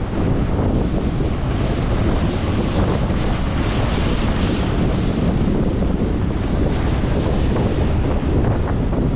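Wind buffeting the microphone over a steady rush of surf.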